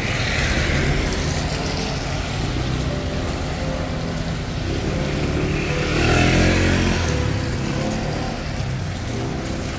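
A moped or motor scooter rides up the wet street and passes close by, its engine loudest about six to seven seconds in, over a steady hiss of traffic on wet road.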